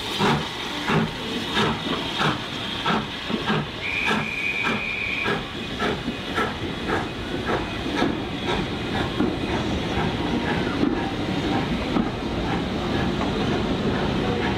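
Steam train pulling out, its coaches rolling past with a rhythmic clatter of about two beats a second over a hiss of steam. A short, high whistle note sounds about four seconds in. Towards the end the beats give way to a steady rumble.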